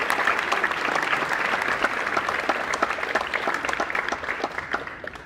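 Theatre audience applauding, a dense crackle of many hands clapping that dies away near the end.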